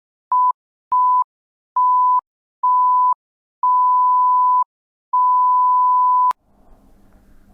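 An electronic beep tone at one steady pitch, sounding six times with dead silence between. Each beep is longer than the one before, the last lasting over a second and cutting off with a click.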